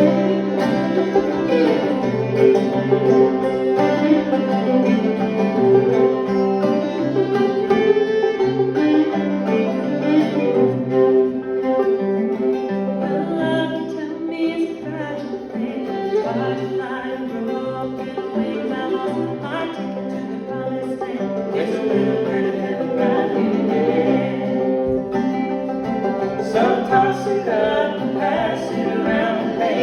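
Old-time string band playing an instrumental break: fiddle carrying the melody over banjo and a steady, rhythmic bass line.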